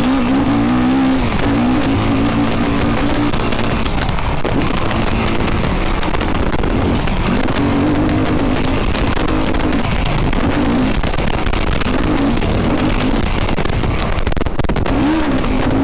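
Yamaha YFZ sport quad's engine revving up and down as it is ridden hard around a dirt track, its pitch rising and falling again and again, over a steady rush of wind and ground noise.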